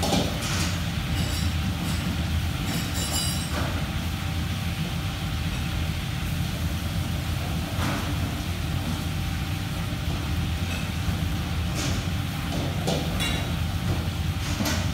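Commercial kitchen background noise: a steady low rumble with a faint steady tone over it, and scattered clinks and clatter of dishes and utensils.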